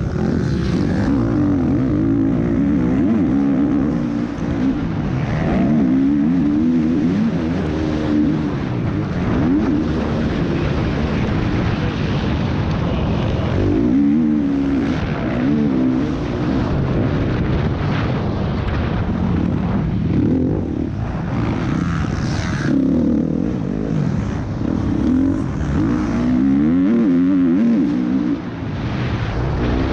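Motocross bike engine heard from on board, revving hard and falling back again and again as the rider accelerates out of corners and over jumps and shuts off for braking.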